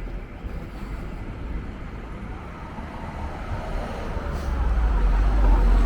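City street traffic: a motor vehicle approaching, its low rumble growing steadily louder over the last few seconds.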